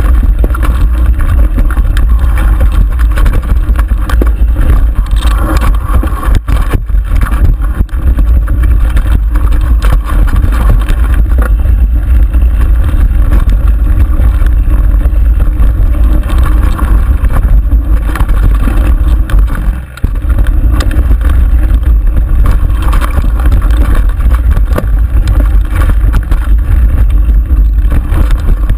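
Wind buffeting a bike-mounted camera's microphone during a fast mountain-bike descent on dirt singletrack, with constant rattling and knocking of the bike over rough ground and tyre noise on the dirt.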